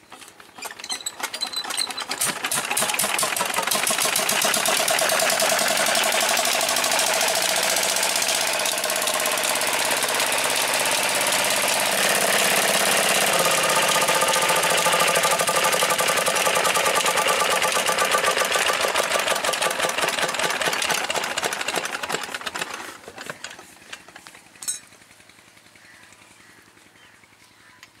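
Old Petter stationary diesel engine starting up and running with a fast, even knocking beat, then dying away and coasting to a stop about twenty-two seconds in.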